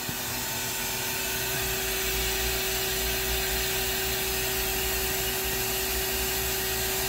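Main spindle of a Ganesh Cyclone 32CS CNC turning center spinning up over the first couple of seconds and then running steadily at about 2000 RPM, with a steady whine over a broad whirring noise.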